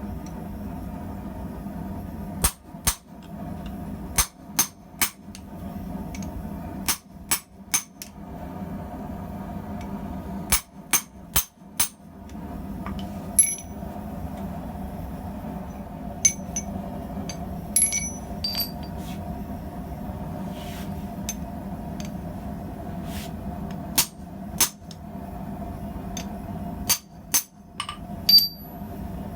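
Hand hammer striking hot steel on an anvil and swage block while tongs are forged, in short groups of two or three blows with pauses between, and a few lighter ringing clinks of metal. A steady hum runs underneath.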